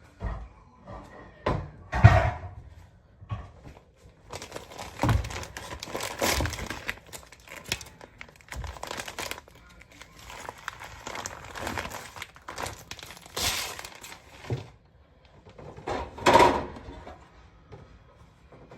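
Crinkling and rustling of plastic wrapping or a bag being handled, with scattered knocks and thuds, the loudest about two seconds in and near the end.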